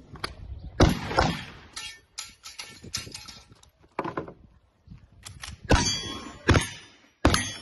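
A string of about eight gunshots fired at an uneven pace, each followed by the ringing clang of a struck steel target.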